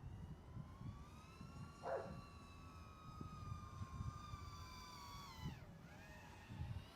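FPV quadcopter's T-Motor Pacer 1804 2400kv brushless motors and 3.5-inch propellers whining in flight, a steady pitched whine that drops sharply about five and a half seconds in as the throttle comes off, then climbs again. A short sound about two seconds in, with low rumble under it all.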